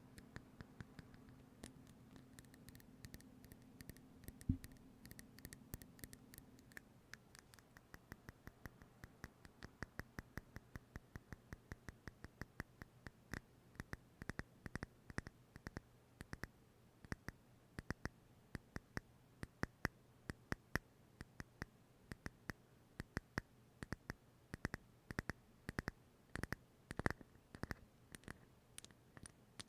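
Faint, rapid tapping or clicking on a small hard object, about four sharp clicks a second, sparser at first, with one louder knock about four seconds in.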